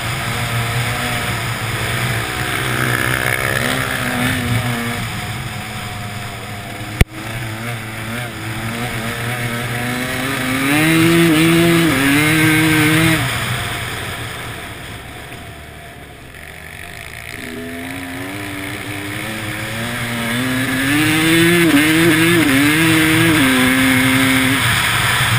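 Motorcycle engine under hard throttle, its pitch climbing in steps through the gears, easing off around the middle and then pulling again near the end, with rushing air noise throughout. A single sharp click about seven seconds in.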